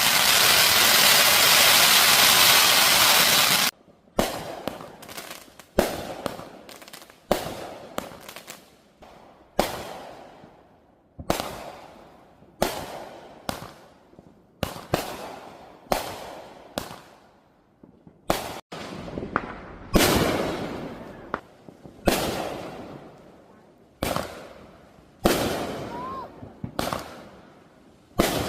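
Aerial fireworks bursting one after another: sharp bangs every second or two, each followed by a fading rumble and crackle. Before the first bang, a loud steady rushing noise cuts off abruptly a few seconds in.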